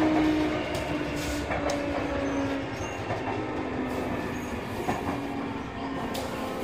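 Sotetsu 8000-series electric train running, heard from on board: a motor whine that slowly falls in pitch as the train slows, over wheel-on-rail rumble, with a few sharp clicks from the rails.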